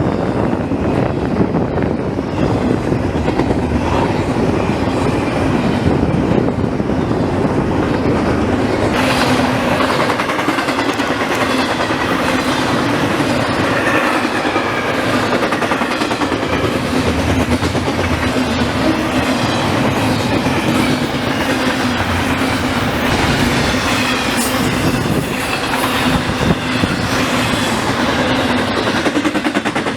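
CSX intermodal freight train rolling past, its wheels clacking over the rails in a continuous loud rumble. The sound turns brighter and hissier about nine seconds in.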